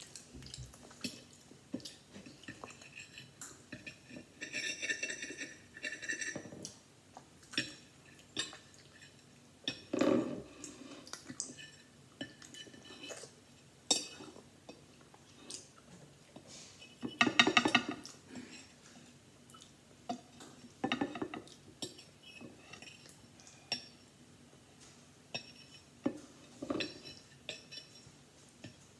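Metal fork clinking and scraping on a plate while scooping up food. The clinks come irregularly throughout, with a few longer scrapes.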